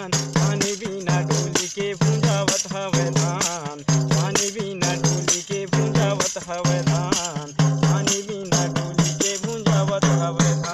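Hand-held frame drum with jingles (a tambourine) struck and shaken in a quick, steady rhythm, over held melodic notes: folk-song music.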